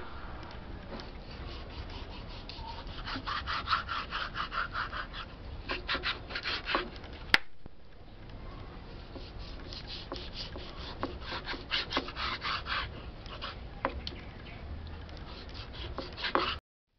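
Kitchen knife sawing back and forth through raw beef on a wooden chopping board, in two runs of quick rasping strokes. There is a sharp knock of the blade on the board about halfway through, and the sound cuts off suddenly near the end.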